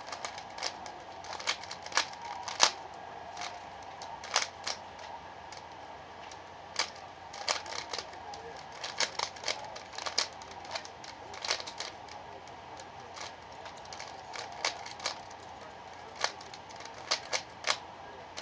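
Rubik's Cube being turned by hand, its plastic layers clicking as they are twisted: quick irregular runs of clicks with short pauses between them.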